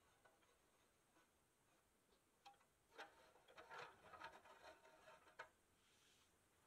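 Faint clicks and ticks from a hand-turned C-frame screw press working against a steel toy truck body, bunched together for about two and a half seconds in the middle after a near-silent start.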